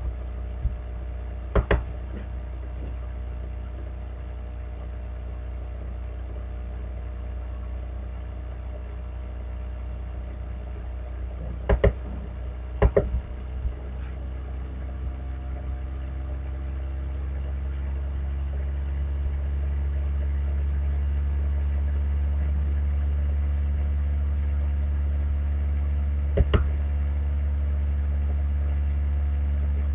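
A computer's cooling fan humming and spinning up, rising slowly in pitch and growing louder through the middle before it holds steady, as the machine works to boot a virtual machine. A few sharp clicks, once or twice close together, stand out over it.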